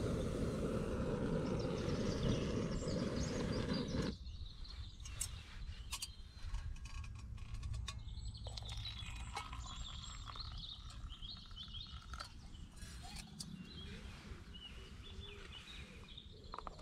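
A canister gas camping stove runs with a steady low roar under a pot of water, then is shut off abruptly about four seconds in. After that come faint birdsong, a few light clicks of the metal pot being handled, and hot water being poured into a mug.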